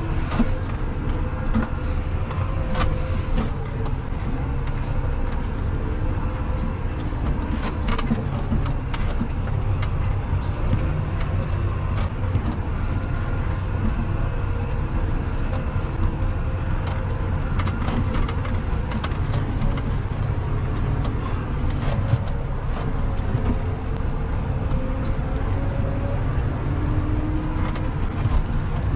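Large tractor's diesel engine running steadily at about 1500 rpm while driving, heard from inside the cab, with occasional light clicks and rattles.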